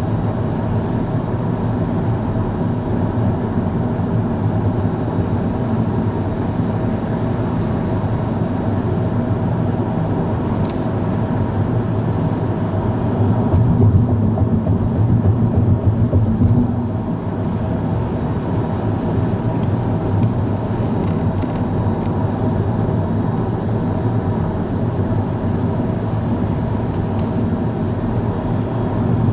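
Car cabin road noise at highway speed: a steady low drone of tyres and engine, swelling louder for a few seconds near the middle.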